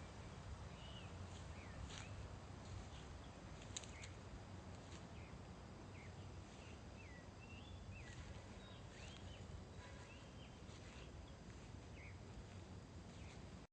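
Faint outdoor woodland ambience: scattered short bird chirps over a steady low rumble, with a few soft clicks.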